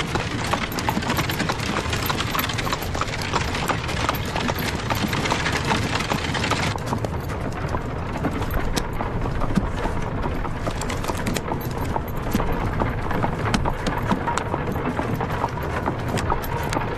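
Horses' hooves clattering quickly and steadily over a continuous low rumble. About seven seconds in, the bright, crisp part of the clatter drops away and the sound turns duller.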